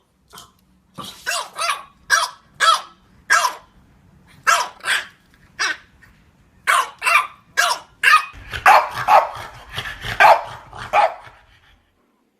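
French Bulldog barking: a string of short, fairly high-pitched barks with short gaps between them. Near the two-thirds mark they turn into a quicker run of barks over a low growl.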